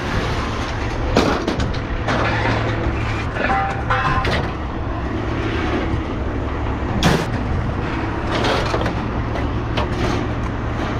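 Pieces of scrap metal clanking as they are handled and tossed, several sharp impacts with the loudest about seven seconds in, over a steady low engine hum.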